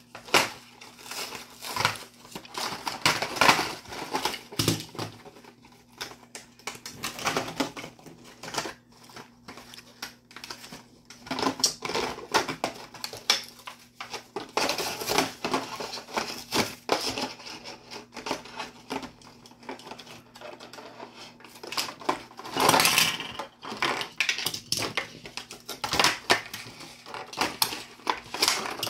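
A cardboard-and-plastic blister pack for a Hot Wheels Monster Jam toy truck being torn open by hand: irregular tearing, crinkling of the clear plastic shell, and small clicks and knocks as it is pulled apart and handled on a table.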